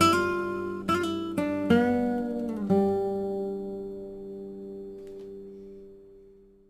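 Background music: acoustic guitar playing a few plucked notes and chords, the last chord ringing and fading out near the end.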